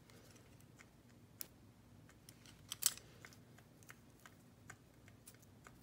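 Beads clicking lightly as they are picked up and strung onto a necklace strand: scattered small clicks, with a sharper one about a second and a half in and the loudest near three seconds.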